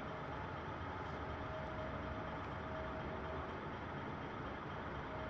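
Radio-controlled model dump truck driving: a faint, steady whine from its electric drive comes and goes over an even background hiss.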